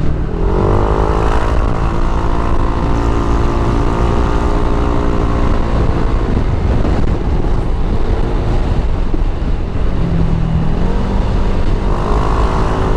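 Motorcycle engine accelerating on the road. Its note climbs about half a second in, holds steady for several seconds and fades, then climbs again near the end, over steady wind rush on the riding microphone.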